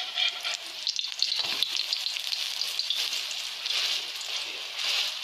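Unripe saba banana fritters sizzling in hot oil in a metal pan, a steady hiss full of small crackles. A slotted metal spatula scrapes and taps against the pan as the fritters are pushed and turned.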